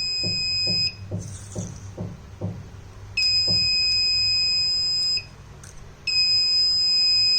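The Arduino alarm's buzzer sounds a steady high-pitched tone in long beeps of about two seconds each, with pauses between them: the PIR sensor has detected motion. One beep stops about a second in, another runs from about three to five seconds, and a third starts about six seconds in.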